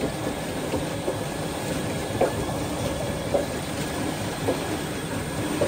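Steady rush of pumped water pouring down a drainage channel over a fish net, with a motor pump running underneath. A few small splashes as hands work in the water.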